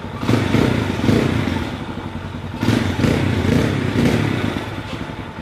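CF Moto 230 Dual's single-cylinder carburetted engine running and revved twice, each rise swelling and then falling back.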